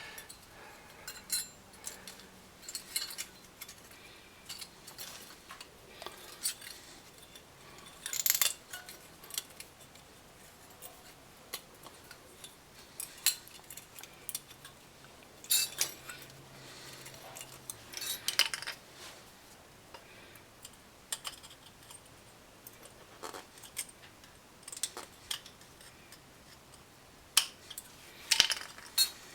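Scattered metallic clinks and scrapes of a screwdriver and brake parts being handled and fitted on a car's rear brake assembly, with a few louder clanks.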